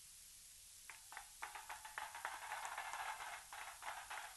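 Crowd clapping: it starts about a second in with scattered claps, thickens into a spell of applause and thins out near the end.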